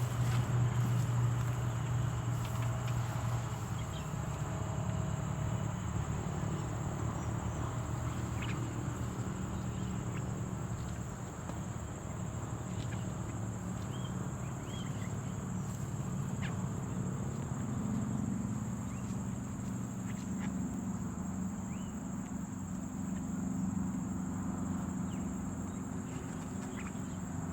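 Steady high-pitched drone of insects in the field, with a low steady hum underneath and a few faint short chirps.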